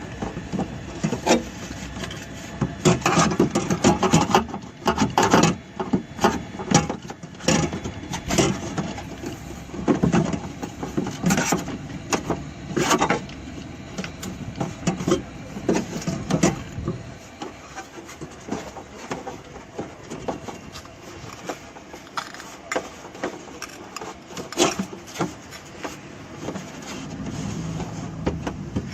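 Hand sanding on a car door's bodywork: sandpaper rubbing and scraping over the filled, feathered repair in quick, uneven strokes.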